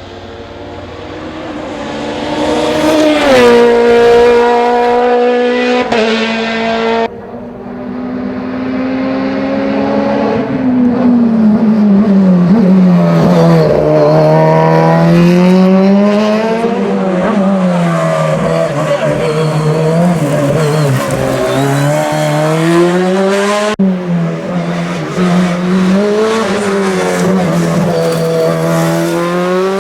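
Osella PA 21 S Evo Honda race car's engine at racing revs, its pitch climbing and falling again and again through gear changes and braking. The sound breaks off suddenly twice, about seven seconds in and near the 24-second mark.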